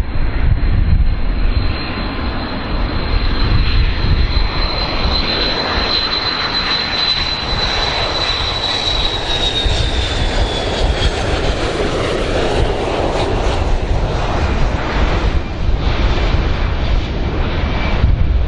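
Boeing 727 tri-jet on landing approach, its JT8D turbofan engines running with a deep rumble. A steady high engine whine sounds over the rumble and falls in pitch about eight to eleven seconds in, then fades.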